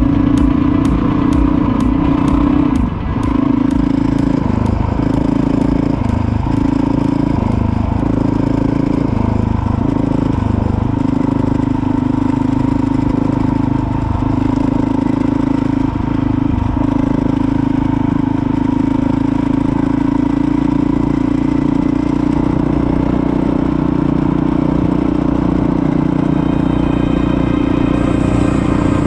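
Motorcycle engine running at a steady pitch under way, with several brief drops in pitch in the first half as the throttle eases and picks up again.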